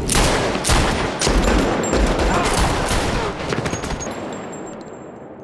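A rapid series of handgun shots with heavy echo, as in a film gunfight. The shots crowd together over the first few seconds, then the sound fades away over the last two seconds.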